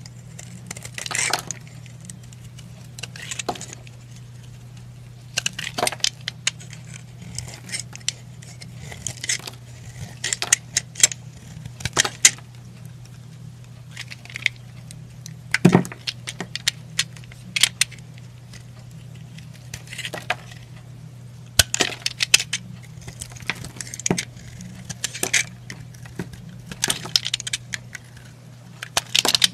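Snap-off utility knife blade cutting into a hard bar of soap: crisp, crunchy scraping cuts in irregular clusters as slices and chips break away, over a faint steady low hum.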